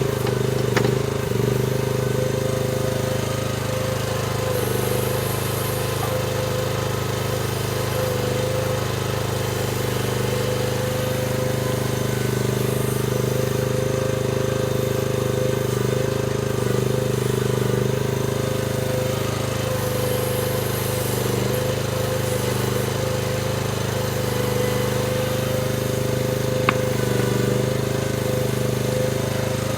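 Chinese mini excavator's engine running steadily under work, with a constant higher tone over the engine note. Two brief sharp clicks, about a second in and near the end.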